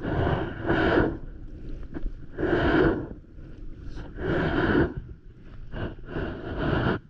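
Stand-up paddleboard paddle strokes splashing through seawater, a rush of water about every one and a half to two seconds.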